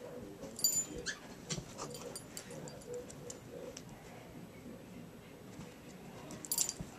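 German shepherd puppy whimpering as it plays with and mouths a hand, with scattered small clicks and two brief high-pitched sounds, one just under a second in and one near the end.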